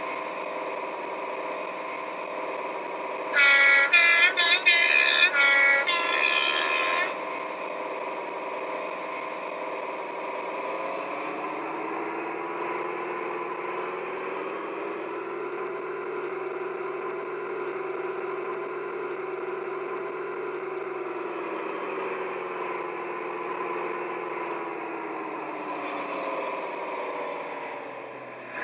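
Hornby HM7000 Class 55 Deltic sound profile playing through a model locomotive's speaker, thin in the bass: the diesel engine drones steadily, with a burst of several horn blasts about three seconds in, the loudest part. The engine then revs up about ten seconds in, holds, and notches back down about twenty-two seconds in.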